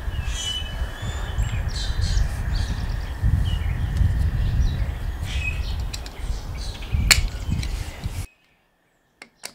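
Outdoor ambience: wind buffeting the microphone as an uneven low rumble, with birds chirping in the background. A single sharp click comes about seven seconds in, and the sound cuts off abruptly near the end.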